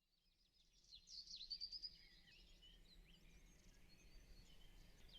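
Several small birds chirping and twittering faintly, fading in from silence over the first second, the busiest calls between one and two seconds in.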